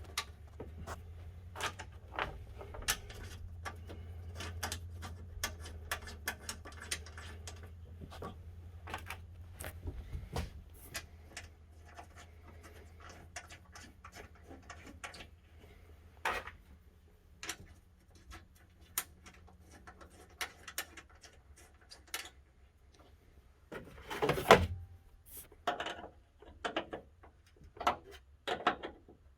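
Irregular metallic clicks, taps and knocks of hand-work on a car wheel while old lug nuts are taken off and spiked aftermarket lug nuts are fitted, with a louder clatter about three quarters of the way through. A low hum sits under the first third and fades out.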